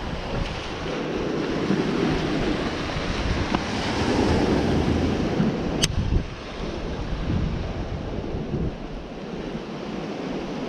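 Ocean surf washing and breaking over shoreline rocks, with wind buffeting the microphone; the wash swells louder in the middle. A single sharp click about six seconds in.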